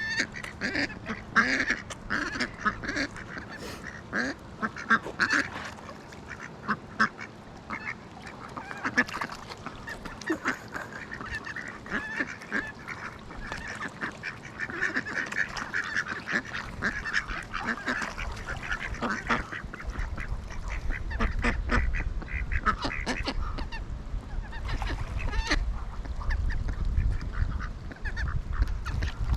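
A flock of waterfowl calling over and over in short, quick calls as they crowd in to be fed tortilla scraps. A low rumble joins in the second half.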